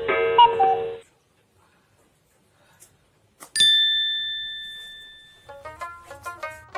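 A short electronic melody stops about a second in. After a pause, a single bright bell ding rings out and fades slowly, and plucked-string music starts near the end.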